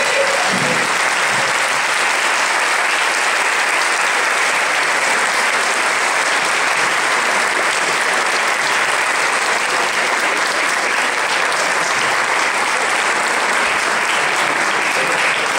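Audience applauding, a dense, steady clapping that holds throughout.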